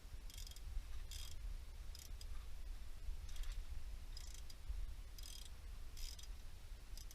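A hand tool worked in short strokes: about eight brief, high-pitched clicking rasps, roughly one a second, over a low steady rumble.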